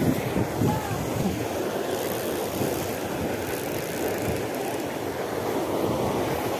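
Steady, even rushing noise, strongest in the low range, with no distinct events.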